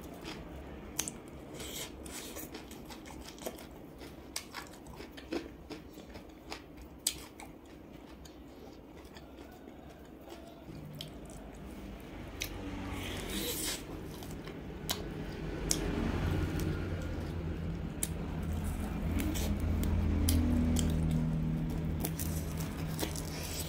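Close-miked eating of chili-salt roast duck: crisp bites, wet chewing and the tearing of duck meat and skin, with many sharp mouth clicks. The chewing grows louder and denser in the second half.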